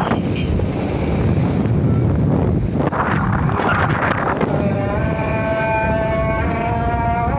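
Wind buffeting the microphone over a low rumble of movement. A little past halfway a steady pitched sound of several tones comes in and steps in pitch a few times.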